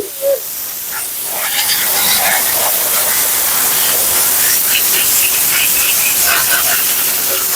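High-velocity pet dryer blowing air through a husky's thick double coat as a steady, loud hiss that builds up over the first couple of seconds. A short pitched whine from the husky comes right at the start.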